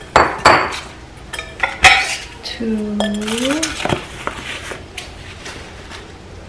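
Glass mixing bowls clinking against each other and the other bowls as they are lifted out of a box, with several sharp clinks, and paper packing wrap rustling in between.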